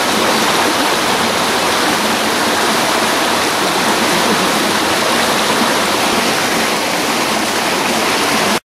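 Rocky stream rushing and splashing over boulders, a steady loud rush of water that cuts off abruptly near the end.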